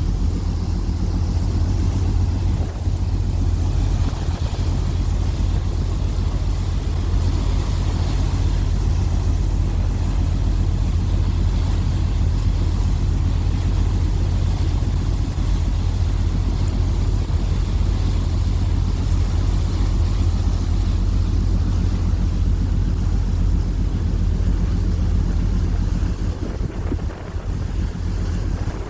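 The ferry Diagoras's engines running with a steady low drone, with wind noise on the microphone.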